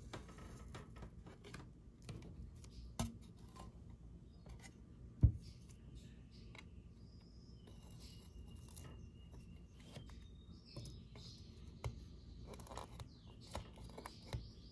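Small clicks, scratches and rustles of hands fitting a chassis protector sheet onto a metal RC car chassis plate, fingers and a hobby knife working it around the plate's holes, with a sharp knock about five seconds in.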